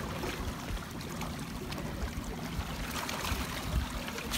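Water washing and lapping against shoreline rocks, under an uneven low rumble on the phone's microphone, with a slightly stronger wash about three seconds in.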